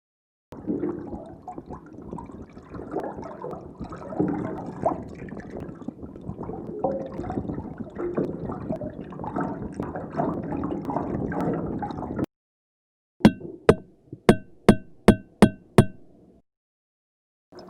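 Underwater water sound, a dense churning bubbling with many small clicks, which stops abruptly. After a short gap come about eight sharp knocks, roughly three a second, each with a brief ringing tone.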